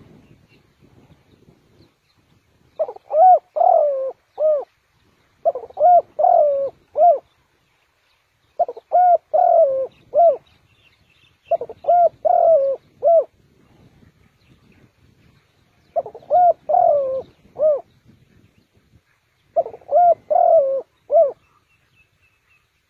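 Spotted dove cooing: six repeated song phrases of several low, hooked coos each, roughly every three to four seconds.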